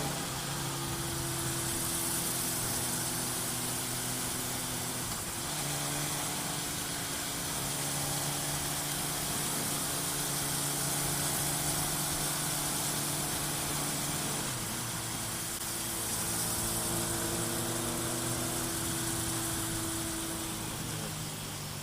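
Sport motorcycle engine running steadily at low revs, its pitch shifting a couple of times and rising gently near the end.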